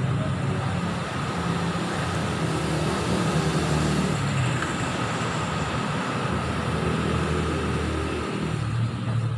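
Yamaha R25's 250 cc parallel-twin engine running steadily, its pitch shifting a little.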